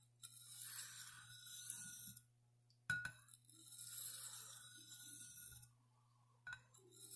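Buck 119 blade drawn in long strokes across a soft Arkansas sharpening stone. Two steel-on-stone strokes of about two to three seconds each, each begun with a light click as the blade is set down, and a third stroke starting near the end.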